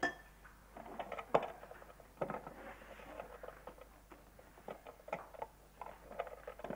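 Irregular small knocks, clicks and rustling as objects are handled and clothing moves, the loudest a sharp knock about a second and a half in.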